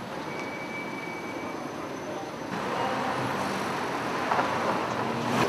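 Road traffic on a busy high street: a steady noise of cars, growing louder about halfway through.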